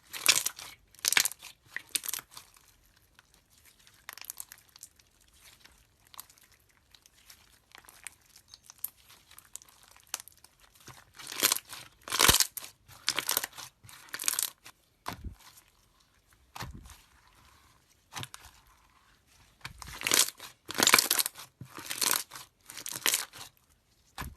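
Slime being squeezed and pressed by hand, giving crackling, crunching pops in three bunches, near the start, about halfway and near the end, with faint crackles between.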